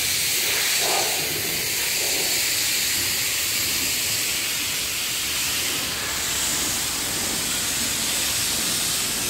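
A steady, even hiss, strongest in the high range, with no distinct sounds standing out.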